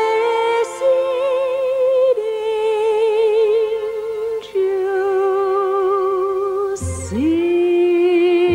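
Christmas music: a singer holding a few long, slow notes with wide vibrato over musical accompaniment, with a soft consonant about a second in and again near the end.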